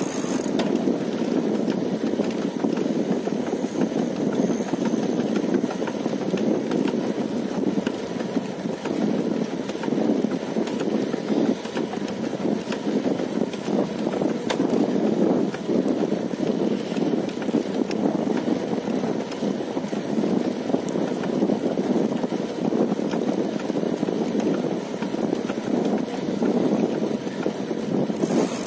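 Wind buffeting the microphone on a moving bicycle: a steady, unbroken rushing noise.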